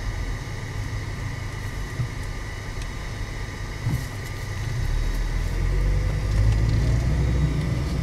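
Car heard from inside the cabin: a steady low rumble of engine and road noise that grows louder about five seconds in as the car pulls forward, with a faint rising engine note.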